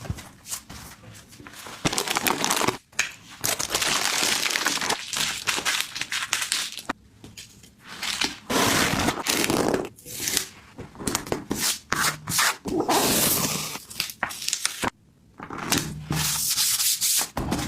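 Hands rubbing and handling a tablet case: scratchy rubbing in stretches of one to several seconds, broken by short pauses and a few light clicks.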